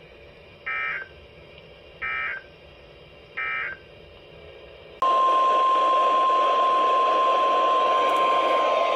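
Three short screeching data bursts of an Emergency Alert System end-of-message code, about a second and a half apart, over faint radio hiss; they mark the end of the previous warning. About five seconds in, the steady single-pitch 1050 Hz warning alarm tone of NOAA Weather Radio starts abruptly over louder static, announcing the next warning.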